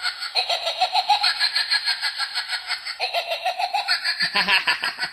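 Light-up party toy playing its built-in sound effect: a high-pitched, fast-pulsing giggle-like sound that repeats in a loop about every two and a half seconds.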